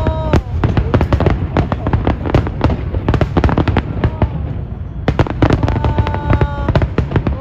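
Fireworks display: a dense, rapid barrage of bangs and crackles from aerial shells. A held pitched tone sounds briefly over it right at the start and again about six seconds in.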